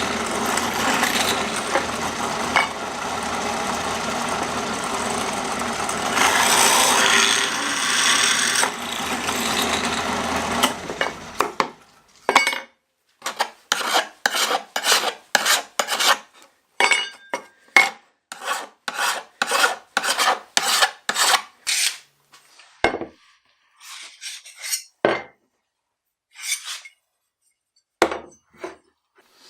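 Power drill boring through 1/8-inch steel plate, a loud continuous grinding noise for about eleven seconds. It is followed by quick back-and-forth scraping strokes, roughly two a second, for about ten seconds, then a few scattered knocks.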